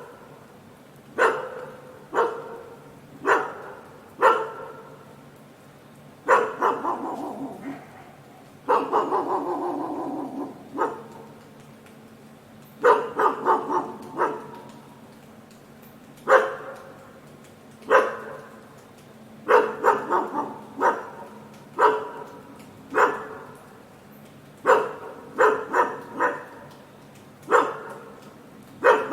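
A dog barking repeatedly: single barks and quick runs of two or three, a second or two apart, with two longer drawn-out calls about six and nine seconds in.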